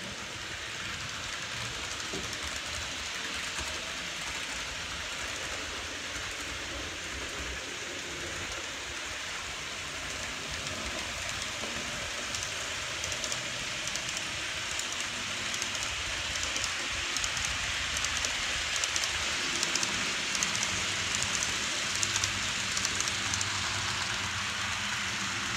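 Model train running on layout track: a steady hiss of wheels rolling on the rails, with rapid fine clicking as the wheels pass over rail joints and turnouts, which grows louder about halfway through as the cars come close.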